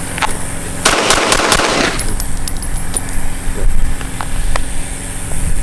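A rapid burst of gunshots about a second in, followed by a few scattered single sharp cracks, over a steady low rumble.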